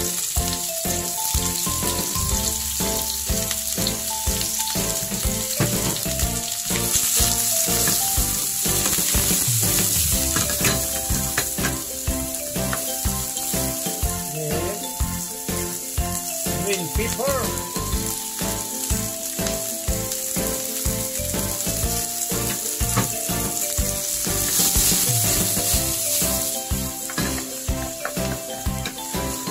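Chopped onion, green pepper and tomato sizzling in hot olive oil in a frying pan, with a wooden spatula scraping through them. The sizzle swells twice, about a third of the way in and again near the end.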